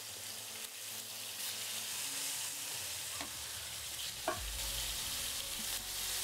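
Floured veal fillets sizzling steadily as they fry in olive oil in a pan, with a couple of short clicks about three and four seconds in as tongs turn the fillets over.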